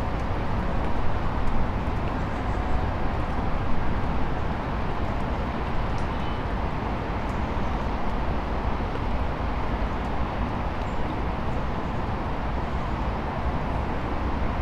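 Steady rumble of road traffic from cars and trucks crossing a bridge, deep and even, with no single event standing out.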